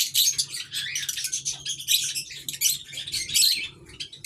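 Small aviary birds chattering: rapid, high-pitched chirps and squeaks almost without pause, over a faint steady low hum.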